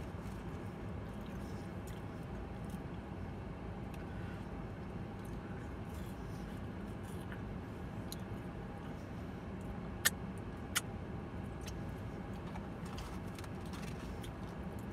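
Steady low hum of a car running while parked, heard from inside the cabin. Two sharp clicks come about ten seconds in, under a second apart.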